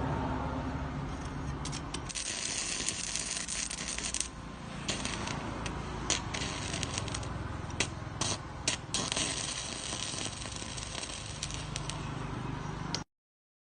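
Irregular clicks and light rattles of small hard objects being handled, over a low hum that fades in the first couple of seconds. The sound cuts off abruptly near the end.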